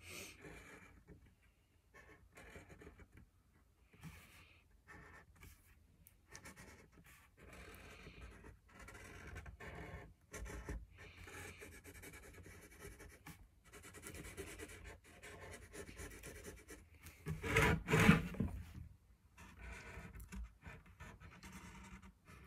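Sharpie marker scratching and squeaking faintly over a hockey stick's shaft in short irregular strokes as the printed lettering is traced over. A brief louder noise about eighteen seconds in.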